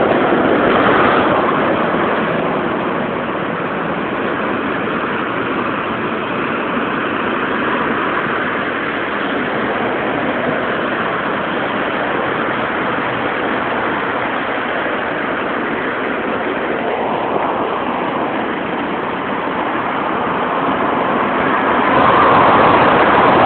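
Steady road traffic noise, with a vehicle passing about two-thirds of the way through and the sound growing louder near the end.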